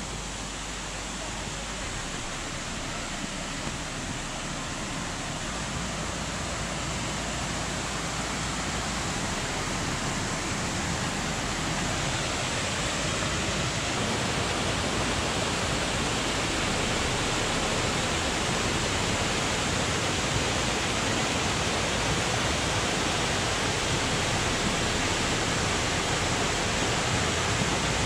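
A small mountain stream rushing over little cascades: a steady rush of water that grows gradually louder over the first half and then holds steady.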